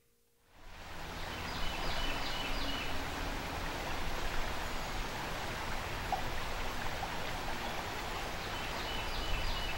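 Fast-flowing river water rushing over rocks: a steady wash of noise that fades in over the first second. Two short series of faint high chirps, about four each, come in a second or so in and again near the end.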